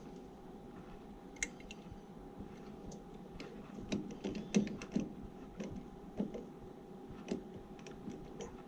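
Irregular light clicks and taps of hands working on the zoning panel's wiring and parts, over a faint steady hum.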